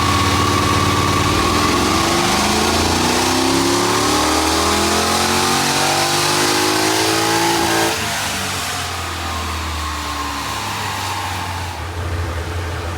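Chevy SS's LS3 V8 making a full-throttle pull on a chassis dyno: the engine note rises steadily for about eight seconds, then drops suddenly as the throttle closes and the engine winds down.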